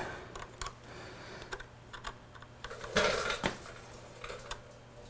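Small metallic clicks and taps of open-end wrenches working the lock nuts on a motorcycle's gear-shift rod, with a short louder clatter about three seconds in.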